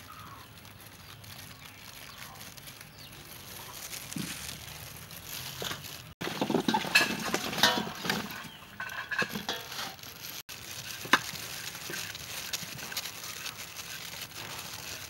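Fruit being handled: grapes plucked into a steel bowl, then a louder stretch of cut apple pieces stirred by hand against a stainless-steel bowl, then an apple scraped with a hand peeler, with one sharp click.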